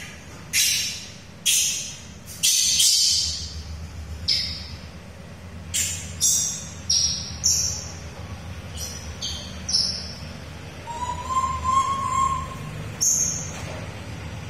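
Short, high-pitched animal calls, a dozen or so at uneven intervals, over a steady low hum.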